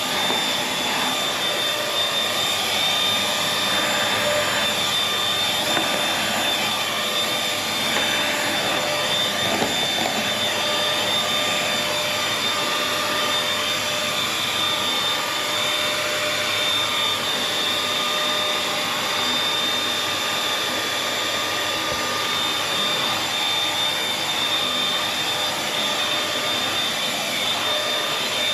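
Vacuum cleaner motor running steadily, with a constant high whine and suction hiss.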